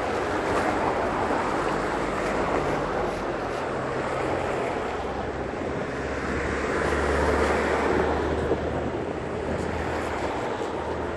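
Street traffic on a wet, slushy road: cars and a van driving past with a steady tyre hiss that swells and fades, and a low engine hum growing louder about six seconds in.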